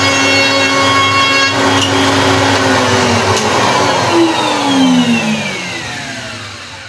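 Table-mounted router with a bevel (chamfer) cutter running at a steady pitch, then switched off about two seconds in. Its whine falls steadily and fades as the motor and cutter spin down.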